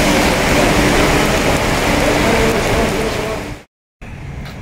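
Heavy rain pouring down, a loud steady hiss of downpour that cuts off suddenly about three and a half seconds in, leaving a much quieter background.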